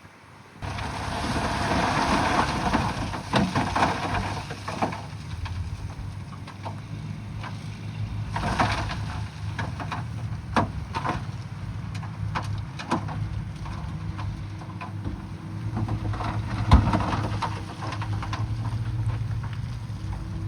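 Bulldozer's diesel engine running under load, with scraping and many scattered knocks and clanks from the work against rock, and one sharp bang about seventeen seconds in.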